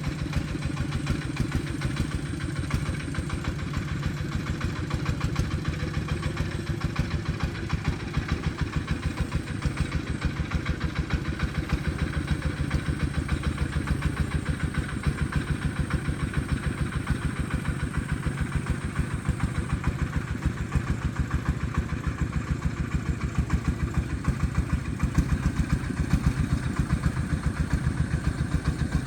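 Agricultural logging truck's engine running steadily, with an even, rapid firing beat.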